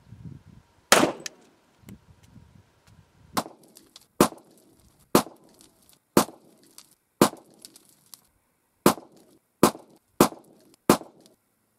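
Springfield XD(M) .45 ACP pistol firing a slow string of about ten shots, roughly one a second, with short echoes after each.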